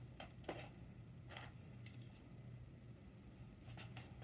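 Near silence: a few faint clicks and taps of tools and small parts being handled on a workbench, over a low steady hum.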